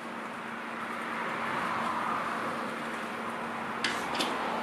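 A foam pump bottle pressed twice in quick succession about four seconds in, two short sharp clicks, over a steady rushing noise with a faint low hum.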